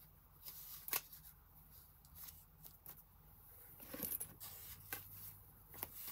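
Paper strips rustling and sliding over a journal page, with a few short clicks and light knocks.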